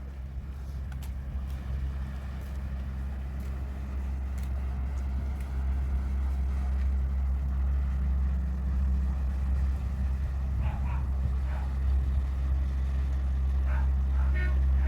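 A large ship's engine drones steadily and low as the vessel passes close, growing slowly louder. Near the end a ship's horn starts to sound.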